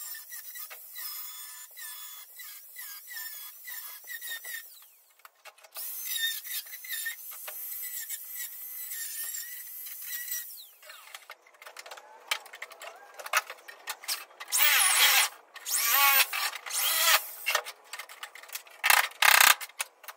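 Angle grinder cutting through the sheet-steel rear window filler panel of a car body. A wavering whine breaks off briefly about five seconds in. In the second half come louder, uneven bursts of metal screeching.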